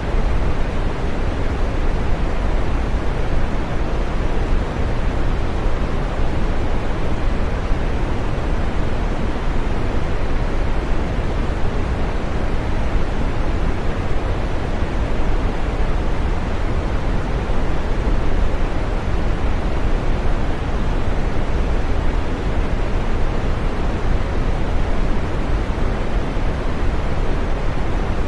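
Green noise: a steady, unchanging synthetic noise, full and soft, with most of its weight in the low and middle range and little hiss at the top.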